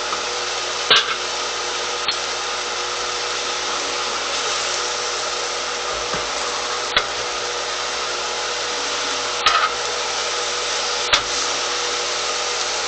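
Chicken strips with bell peppers and onions sizzling steadily on a hot oiled grill, with a few sharp clicks.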